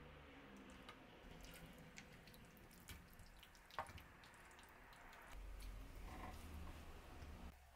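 Faint wet sounds of simmered pork belly and daikon in thickened sauce sliding from a pan into a plastic container, with small drips and clicks and one sharp tap a little under four seconds in.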